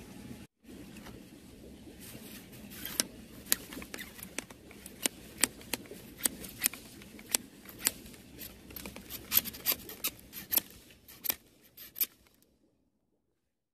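A string of sharp, irregular clicks, about two a second, over a low steady hum, with silence near the end.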